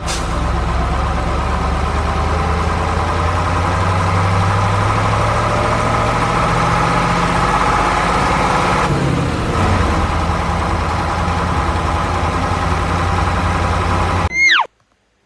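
An engine running steadily, its pitch shifting slightly about two thirds of the way through, then cutting off abruptly near the end, followed by a short falling cry.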